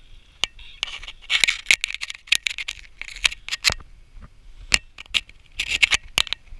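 Freshly caught striped bass thrashing while held up by the lip, an irregular run of sharp slaps, clicks and short rustling scrapes, busiest in the first half and again near the end.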